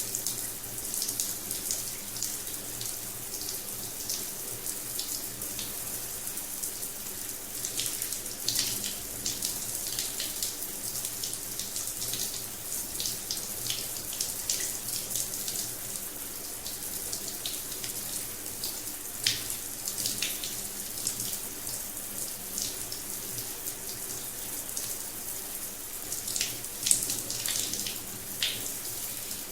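Rain shower head running: a steady hiss of falling water, with scattered louder splashes, a few of them near the end.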